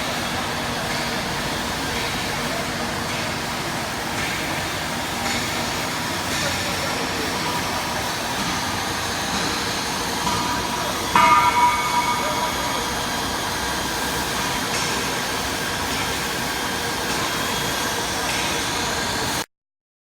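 Steady metalworking-shop machine noise, with a single ringing metal clang about halfway through. The sound cuts off abruptly shortly before the end.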